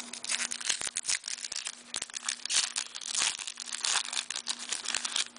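Crinkling and crackling of O-Pee-Chee hockey card pack wrappers handled by hand: a dense run of small crackles and rustles.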